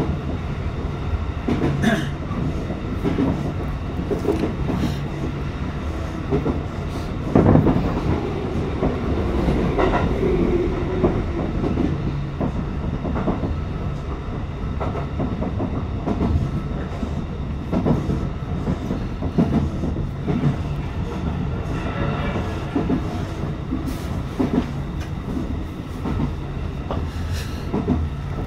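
Tokyo Metro 18000 series electric commuter train running along the line, heard from inside the driver's cab: a steady rumble of wheels on rail, with occasional clicks as the wheels pass over rail joints.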